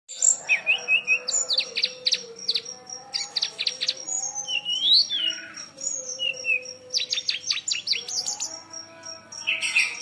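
A songbird singing hard in full song: a fast, varied run of sharp chirps, quick downward-sweeping notes and short whistles, pausing only briefly.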